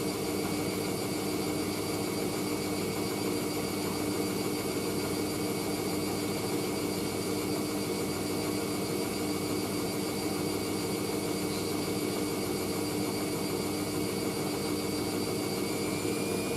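Hoover AAA160 Whisper 1600 washing machine in its final spin, the drum motor whining at a steady speed with the drum's rumble underneath. Near the end the pitch starts to rise as the drum begins accelerating toward its 800 rpm spin.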